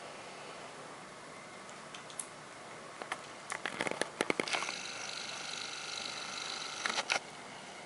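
Handling noise: a quick run of sharp clicks and rustles as hands take hold of a leveret on a towel, then a steady high whine for about two and a half seconds, which ends with two sharp clicks.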